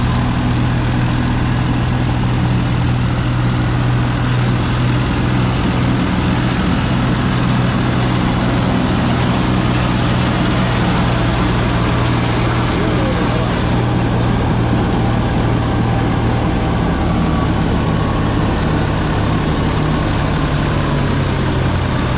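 Turbocharged diesel engine of a New Holland 3630 tractor running steadily at a constant speed, a loud, even drone with a strong low hum.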